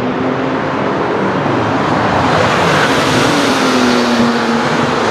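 Porsche 997-generation 911 flat-six engines running hard on a race circuit, a loud, continuous engine and exhaust note from two cars. About three seconds in, the engine note falls.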